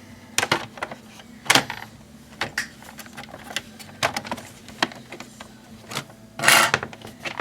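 Hard plastic laptop parts clicking and knocking as the palm rest is fitted back onto the chassis during reassembly. There is a longer, louder scrape near the end.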